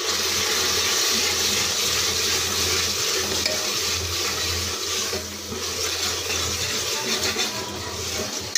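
Onion and spice masala sizzling in hot oil in a pressure cooker pot, stirred with a metal ladle that scrapes and clinks against the pot. The sizzle is strongest for the first few seconds and eases slightly about halfway through.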